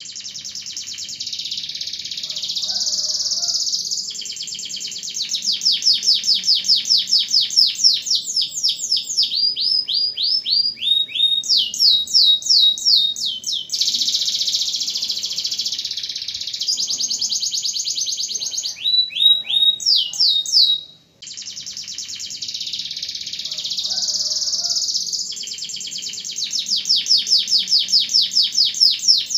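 Domestic canary singing a long, high-pitched song of fast rolling trills and rapid repeated notes, some of them falling sweeps. The song breaks off for an instant about two-thirds of the way through, then starts again.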